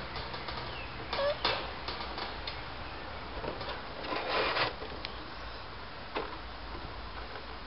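Miniature schnauzer puppies scuffling and playing on concrete: scattered small clicks and scrapes, a brief squeak about a second in, and a longer scraping rush about four seconds in.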